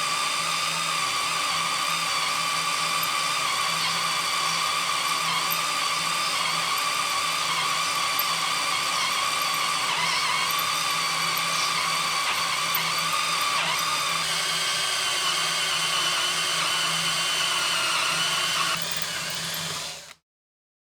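Electric drill boring into steel, running as a steady high whine. Near the end it turns quieter, then stops abruptly.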